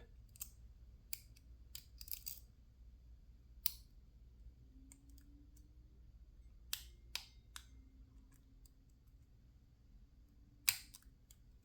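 Sparse small metallic clicks of a lock pick and tension wrench working the pins of a PacLock 410 Pro padlock as the pins are set again, with the sharpest click near the end.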